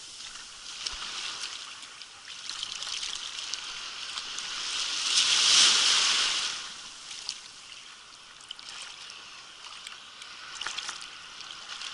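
Small sea waves washing up the beach, the foam fizzing over the sand; one wave surges in and breaks loudest in the middle, then drains back. Small splashes near the end.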